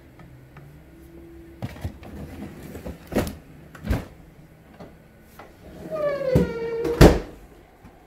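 Knocks and clunks from a Samsung French-door refrigerator's pull-out freezer drawer and doors being handled, the loudest about seven seconds in, just after a short squeak that falls in pitch and then holds.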